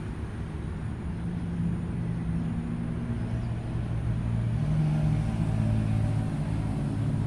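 A motor vehicle's engine running steadily with a low hum, getting louder about halfway through.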